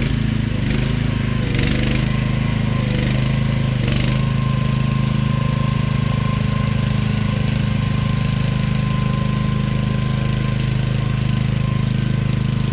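AGT QH12R mini excavator's engine running steadily, with a few short knocks and rattles in the first few seconds. A steady high whine joins about four seconds in and holds.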